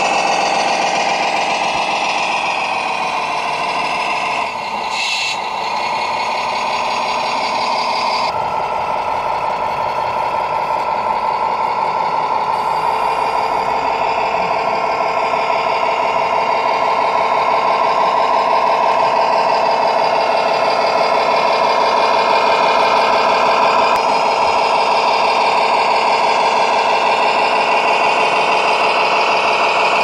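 Recorded truck-engine sound from a radio-controlled scale truck's sound module, a steady diesel drone with fixed pitch. It changes abruptly a couple of times.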